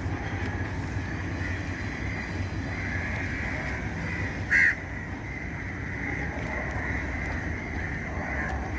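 A crow caws once, short and loud, about halfway through, over a steady low background rumble.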